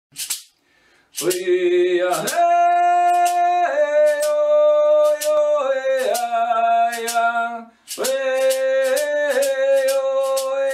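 A single voice sings long held notes in two phrases, the pitch stepping down through each phrase, over a steady beat of sharp percussion strikes about twice a second.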